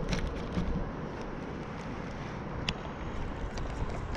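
Wind rumbling on the microphone, with a few sharp clicks in the first half-second, another about two-thirds of the way in, and fainter ticks near the end.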